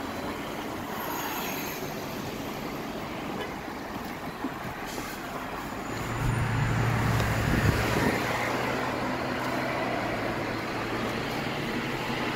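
Road traffic passing on a busy street, then from about six seconds in a steady low engine hum and road noise heard from inside a moving car's cabin.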